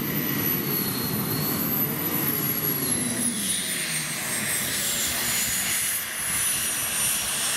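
Modified pulling tractor's engines running with a jet-like rush, a high whine slowly falling in pitch from about three seconds in as they wind down.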